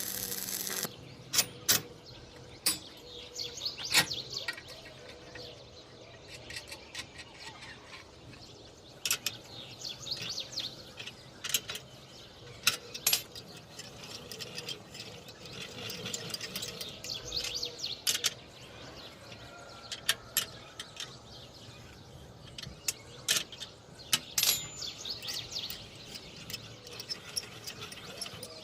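Intermittent sharp clicks and knocks of metal parts and tools being handled, with birds chirping in the background.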